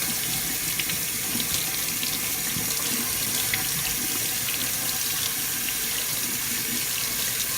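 Kitchen faucet running steadily into the sink, water splashing as raw pork chops are rinsed under it one by one.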